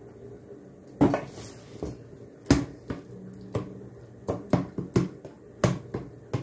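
Kitchen utensils knocking and clattering against cookware in about fifteen sharp, uneven hits.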